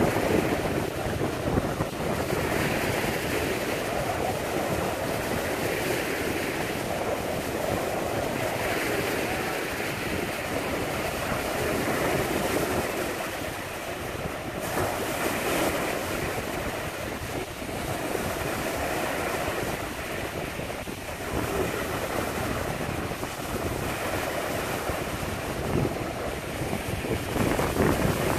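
Wind-driven lake waves breaking on the shore and washing over a flooded dock, a steady rush that swells and eases every few seconds, with wind buffeting the microphone.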